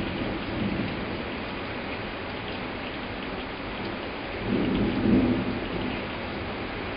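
Heavy summer cloudburst: steady hiss of pouring rain, with a rumble of thunder swelling about four and a half seconds in and fading a second or so later.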